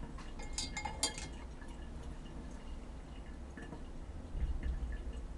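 Glass vessel clinking a few times about half a second to a second in, with light liquid sounds as the wax solution is handled, over a steady low rumble.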